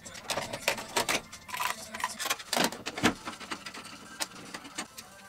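Irregular clicks, taps and rattles of a screwdriver and small metal and plastic electrical parts being handled while dismantling a control box. The clicks are densest in the first three seconds, then sparser.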